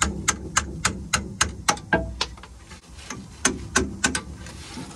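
Ratchet spanner clicking at a steady pace, about three to four clicks a second, over a low rumble, stopping about four seconds in.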